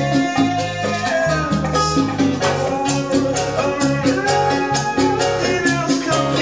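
Latin dance music, with a repeating bass line, steady percussion and a gliding melody line, played through a Sansui A-80 integrated amplifier and its speakers.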